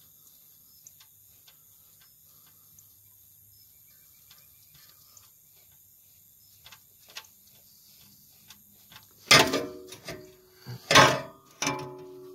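Faint, scattered ratchet clicks as an oil filter is worked loose with a socket wrench. About nine seconds in, loud plucked-guitar strums of background music begin.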